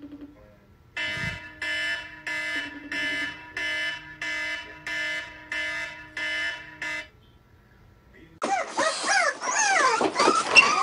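Smartphone alarm beeping in a steady pattern, about two beeps a second, for some six seconds, then stopping. After a short pause, a dog's high, sliding whines start in and carry on loudly.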